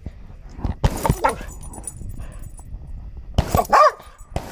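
Dog barking while playing in a hose's spray: a short bark about a second in, then two louder barks close together near the end.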